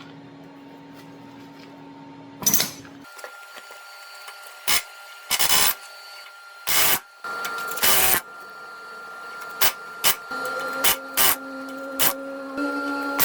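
Heavy-duty Chicago Pneumatic CP717 air hammer fired in about a dozen short bursts, driving a worn bushing out of its bore.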